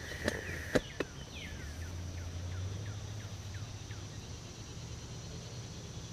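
Summer outdoor ambience heard through a tent wall: a steady high insect drone, and a bird giving a series of short falling chirps for a few seconds. Two sharp clicks of handling sound come in the first second.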